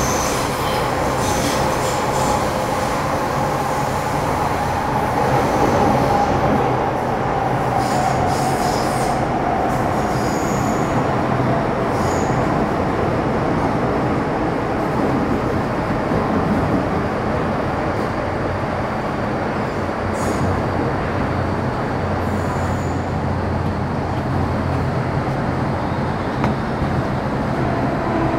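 MTR Metro Cammell M-Train electric multiple unit running through the tunnel, heard from inside the car: a steady rumble of wheels on track with a whine that slowly falls in pitch over the first half, and new lower whines coming in near the end.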